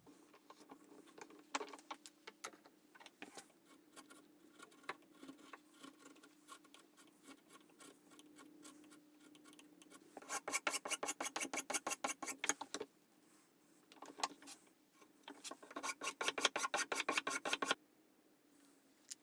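Hand file scraping over the workpiece: light scattered strokes at first, then two runs of fast, louder back-and-forth strokes, about ten a second, near the middle and toward the end.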